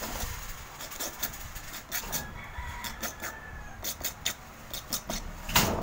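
A rooster crowing, a drawn-out call with a gliding pitch lasting about a second and a half, around the middle. Scattered sharp clicks of handling run throughout, with one louder knock near the end.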